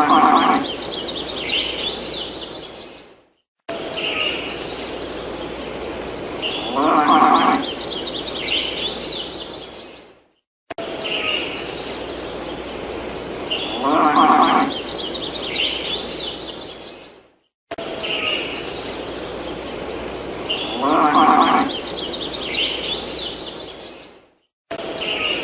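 Looped farm ambience: a short farm-animal call followed by quick bird chirps and trills, the same few seconds repeating about every seven seconds with brief silent gaps between.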